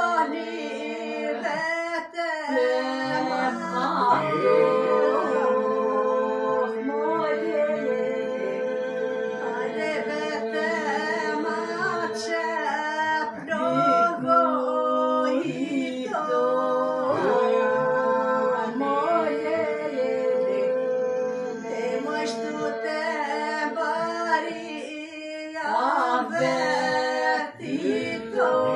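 A small group of voices singing an Aromanian folk song a cappella in several parts: one or two voices hold a steady drone while others carry the melody above it, pausing briefly between phrases.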